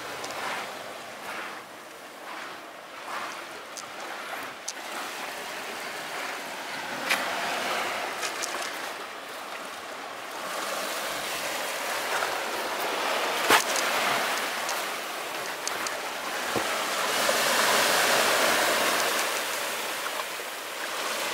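Sea waves washing onto a sandy beach below: a steady surf hiss that grows louder in the second half and near the end. A few sharp knocks of footsteps on the sandy rock path, the loudest about two-thirds of the way through.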